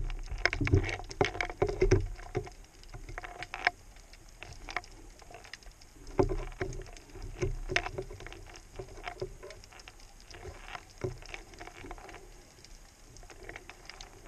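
Underwater handling noise picked up through a camera's waterproof housing: irregular clicks, knocks and dull bumps as a freediver handles a speared fish and the speargun, busiest in the first few seconds and again around the middle.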